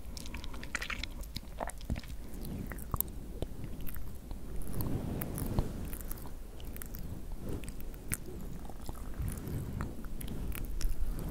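Close-up crackling and rustling of white synthetic fake-cobweb fibre being stretched and pulled apart by fingertips, with many small irregular crackles.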